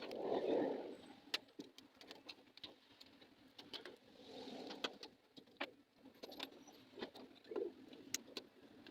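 Scattered small clicks and taps of tools and parts handled during smartphone disassembly, with a few soft, low cooing sounds: one about half a second in, another about four seconds in, and a brief one near the end.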